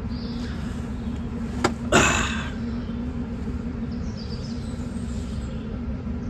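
Dump truck's diesel engine running with a steady low rumble and hum, with a sharp click and then a brief hiss about two seconds in.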